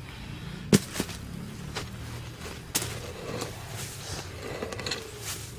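Hoe chopping into red soil and cassava roots while the tubers are dug out: a sharp strike under a second in, then several softer chops about a second apart.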